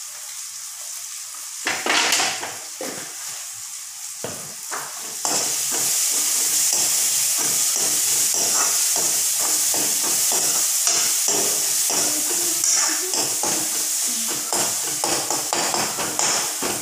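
Onion-tomato masala with turmeric and cumin powder sizzling in a hot kadai while a spatula stirs and scrapes the pan in many short strokes. The sizzle grows louder and steadier about five seconds in.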